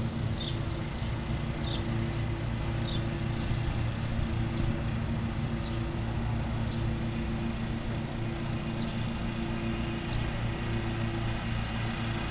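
Birds chirping in short, high, falling notes, several a second at first and sparser later, over a steady low hum.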